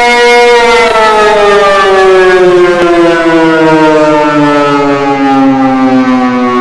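Civil defense warning siren holding a steady tone, then winding down with a smoothly falling pitch from about half a second in.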